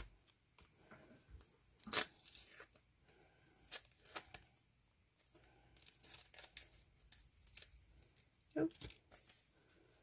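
Clear plastic sleeve and tape being torn and peeled open by hand, the plastic crinkling, in a series of sharp bursts, the loudest about two seconds in.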